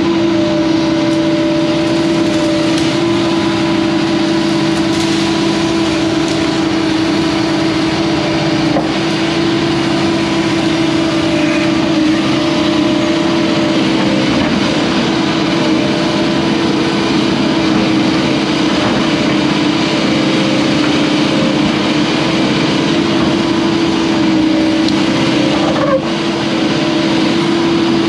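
Hyundai HX210AL excavator's diesel engine running steadily under load, with a strong steady hum over it, as the boom pushes against a tree to fell it.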